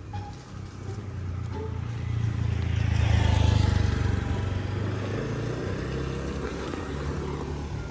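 A road vehicle passing close by. It grows louder to a peak about three and a half seconds in, then fades.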